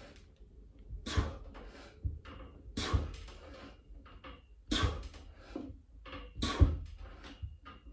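A man's hard breathing during pull-ups: a forceful exhale with each rep, about every two seconds, with smaller breaths between and low thuds under them.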